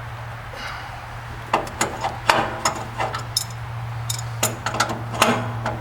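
Irregular metallic clicks and knocks of hand tools working the sawmill's blade-wheel adjuster, about a dozen sharp strikes, over a steady low hum.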